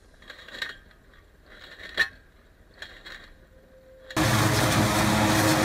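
A few faint sharp knocks, the loudest about two seconds in. Then, suddenly, near the end, the loud steady running of a John Deere tractor and its trailed Champion 2200 forage harvester chopping maize: a low engine hum under a dense chopping roar.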